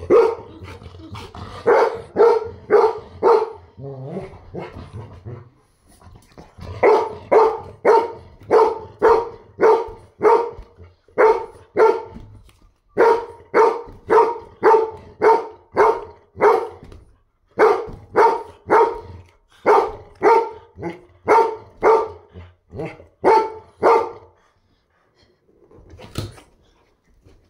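Pet dog barking in long runs of short, evenly spaced barks, about two a second, with brief pauses between the runs. The barking stops about 24 seconds in.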